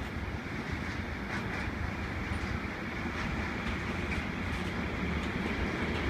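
Long container freight train rolling past: a steady rumble of wagons and steel wheels on the rails, with a few faint clicks.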